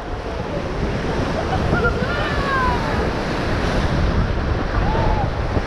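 Rushing whitewater of a river rapid with wind buffeting the microphone, a loud steady roar of water. Faint shouts rise above it a couple of seconds in and again near the end.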